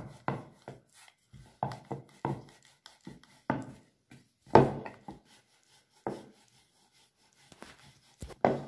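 Wooden rolling pin rolling out bhatura dough on a round wooden board (chakla): a run of separate rubbing, knocking strokes with short pauses, the loudest about halfway through.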